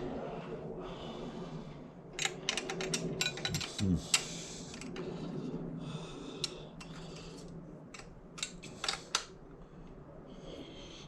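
Metal hand tools clicking and tapping against the Brompton folding bike's frame hinge in an attempt to work the hinge pin free. There is a quick run of sharp clicks about two to four seconds in, a single tap a little later, and a few more taps near nine seconds.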